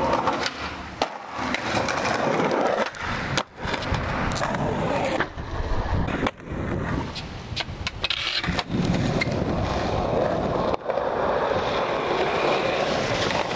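Skateboard wheels rolling on concrete and asphalt, broken by sharp clacks of board pops and landings. The sound cuts off abruptly several times as short takes follow one another.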